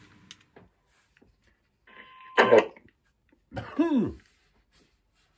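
A man coughs and clears his throat, two short sounds about a second and a half apart, the second falling in pitch.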